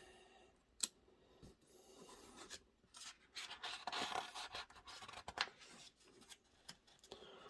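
Paper pages of an instruction manual being turned and handled: soft rustling and scraping with a few sharp clicks, loudest around the middle.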